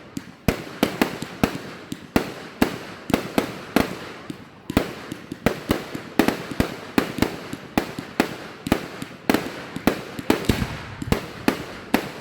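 Fireworks going off in rapid succession: a continuous run of sharp bangs, several a second, one after another.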